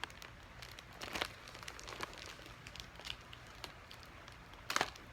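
Package wrapping crinkling and crackling in short scattered bursts as it is worked open by hand, with a louder crackle near the end.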